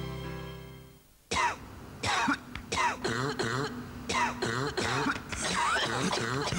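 A music ending fades out in the first second; then people cough and clear their throats in quick, irregular fits, several voices overlapping.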